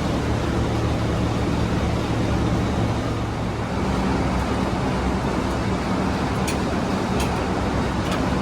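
Tow truck's engine idling steadily, a low even hum, with a few faint ticks near the end.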